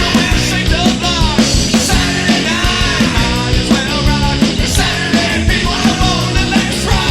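Loud recorded 1990s indie rock song: a full band playing with a steady drum beat.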